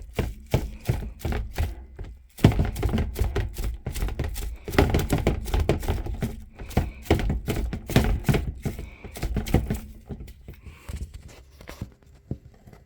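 Small plastic dye bottles being handled and set down on a table: a quick, irregular run of knocks and clicks that thins out near the end.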